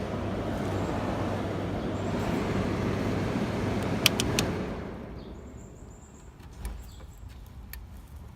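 1984 Kenmore (Gibson-built) window air conditioner's metal blower fan running on low with a steady whoosh of air. A sharp click comes about four seconds in as the control is turned, and the fan sound then dies away.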